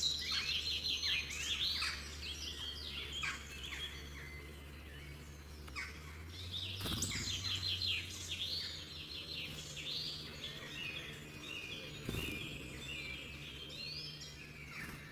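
Songbirds chirping and trilling in quick, overlapping phrases, with a faint low steady hum underneath.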